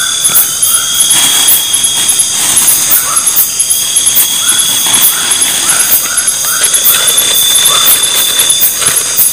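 Dense night chorus of tropical forest insects: several steady high-pitched trills with a fast pulsing chirp above them, and short chirping calls repeating in runs lower down.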